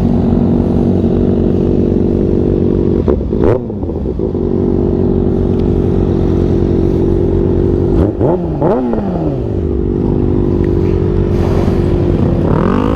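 600cc inline-four sport bike engine idling steadily, revved once briefly about three and a half seconds in and blipped twice in quick succession around eight seconds in.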